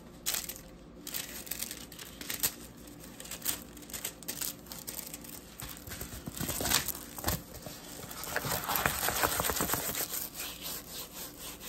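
Clear plastic packaging crinkling and a rolled diamond-painting canvas rustling as it is slid out of its sleeve, opened out and handled. A longer, denser stretch of rustling comes about eight seconds in, as the canvas is rolled back up.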